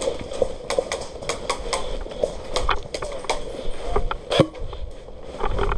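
Airsoft gunfire: irregular sharp clicks and cracks, several close together, with a few louder ones about four and a half seconds in.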